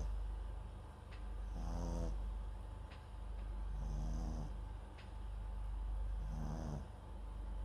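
Papillon × Japanese Chin mix dog snoring in its sleep: a short, buzzy snore about every two seconds, three in all, with breathing between them.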